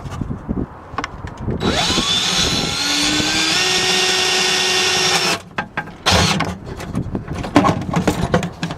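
Electric drill spinning up with a rising whine, then running steadily for about four seconds while drilling a rivet hole. After it stops, there is a short second burst, along with handling clicks and knocks.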